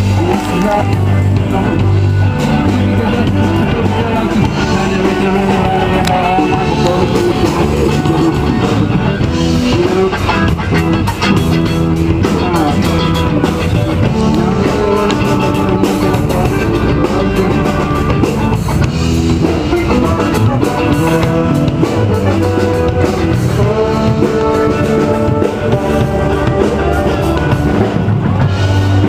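Live funk band playing, with drum kit, guitar and singing.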